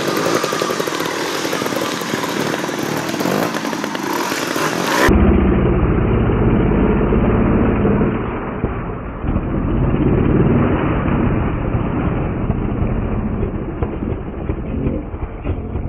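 Two-stroke trials motorcycle engine revving on and off the throttle as the bike climbs loose rock. About five seconds in, the sound turns into a deep, muffled, slowed-down version of the same engine, swelling up and down with the throttle: slow-motion audio.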